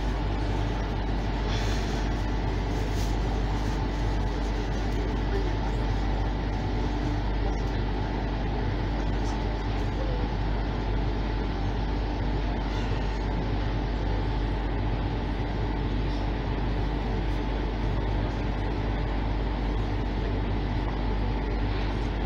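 Steady interior hum of a stationary Tangara electric train carriage: ventilation and onboard machinery running at an even level, with a few constant tones over a deep low drone.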